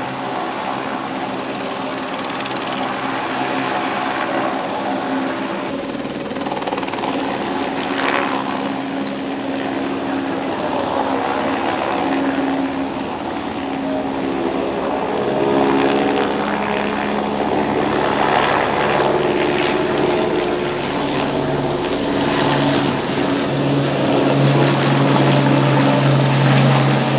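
Helicopter running close by: a steady drone of rotor and engine whose pitch shifts over time, growing louder toward the end.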